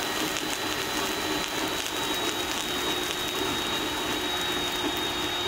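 VEVOR cold spark machine running and shooting a fountain of sparks: a steady hiss with a thin, high whine over it.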